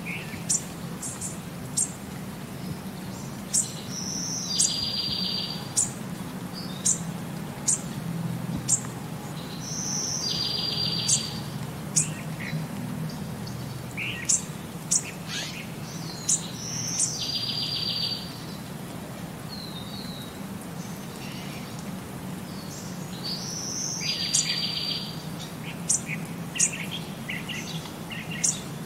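Birdsong: sharp high chirps and short buzzy trills, the same run of calls coming round about every six to seven seconds, over a low steady hum.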